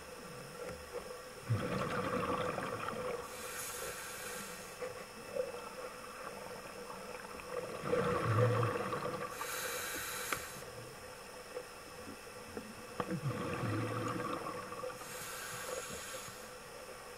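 Scuba diver breathing underwater through a regulator: about three breaths, each a low rush of exhaled bubbles followed by a hissing inhalation, under a faint steady hum.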